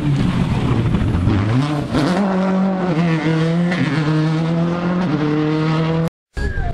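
Rally car engine at full throttle passing at stage speed: the note dips, then climbs sharply about two seconds in and is held high, with a small step down around five seconds. The sound cuts out abruptly just before the end.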